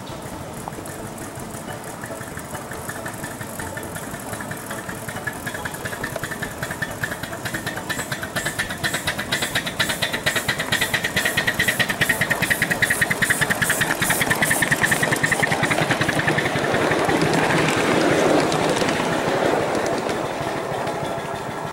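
Ridable scale model train passing close by: a rapid, even chugging that grows louder, then a broad rushing noise as it goes past, fading toward the end.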